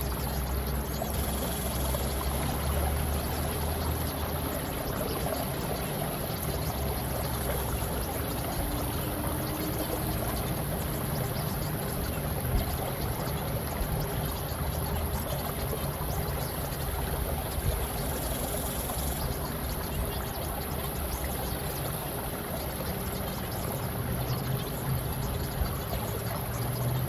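Steady flowing, trickling water, with a faint steady tone held underneath.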